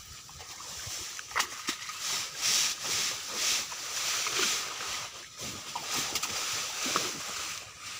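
River water sloshing and splashing around a person moving chest-deep in it, in irregular soft surges about once a second with a few small splashes.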